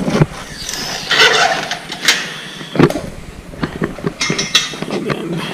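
Tools and metal car parts being handled by hand: a few sharp clanks and knocks with rustling between them.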